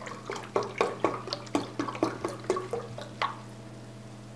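Chicken broth glugging out of a carton spout into a glass measuring cup, about four glugs a second, stopping a little after three seconds in as the carton is tipped back.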